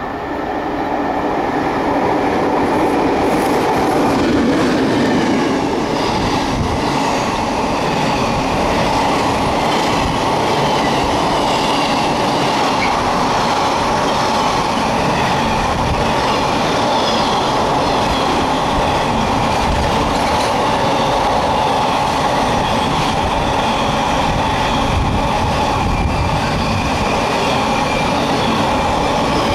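Container freight train passing close by a station platform, growing louder over the first couple of seconds as it arrives, then a steady noise of wagons running past with wheels clicking over the rail joints.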